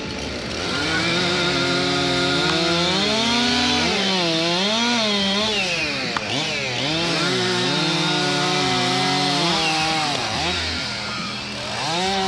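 Two-stroke chainsaws running and cutting through upright logs, the engine pitch repeatedly dropping under load in the cut and climbing back as the saws rev up. A single sharp knock about six seconds in is an axe striking the log.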